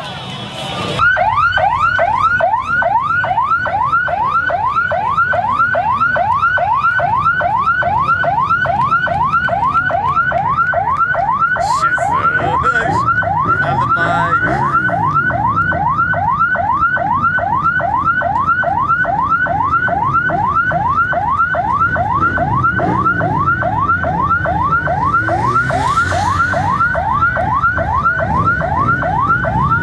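Electronic siren in a fast yelp: a falling sweep repeated about three times a second, starting about a second in and keeping a steady pace over a low rumble of traffic and crowd.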